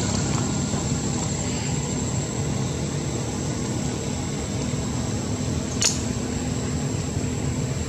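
A steady low mechanical rumble, like an engine running, with a thin steady high tone over it and one sharp click about six seconds in.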